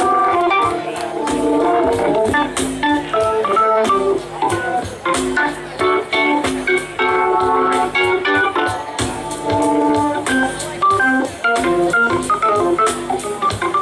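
Live band music with a Hammond organ to the fore, playing held chords and quick runs of notes over the drums and the rest of the band.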